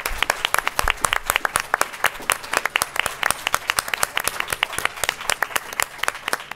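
A small seated audience applauding, many hands clapping at once at a fairly steady level.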